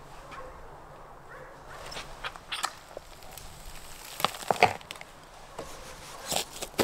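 Knife cutting meat away from a bison carcass: scattered short, sharp sounds of blade and flesh, loudest about four seconds in and near the end.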